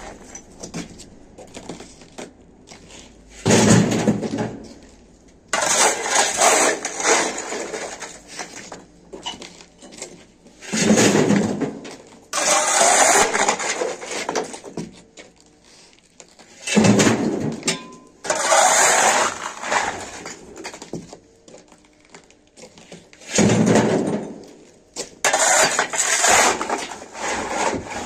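Shovel scraping across a concrete floor and scooping broken masonry rubble, with the rattle of loose chunks, in repeated strokes of a second or two every few seconds.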